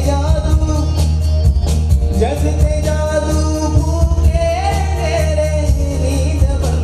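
Man singing a song into a handheld microphone over backing music with a steady beat and bass.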